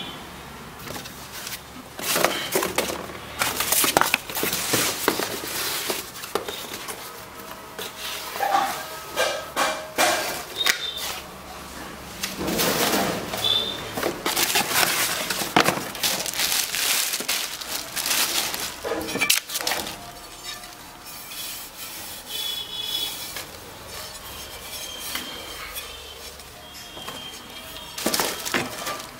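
Plastic wrap and cardboard packaging rustling and crinkling in irregular bursts as cookware is unpacked, with occasional light knocks and clinks of a metal frying pan against the box.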